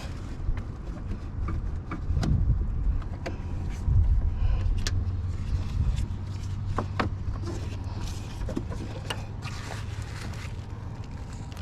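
Scattered sharp metal clicks and knocks of hand tools working on the van, a few seconds apart, over a steady low hum.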